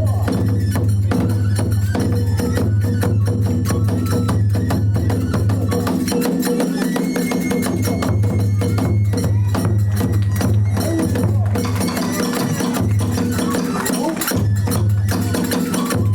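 Kagura accompaniment: fast, driving drumming with clashing small hand cymbals, a dense steady beat that never stops.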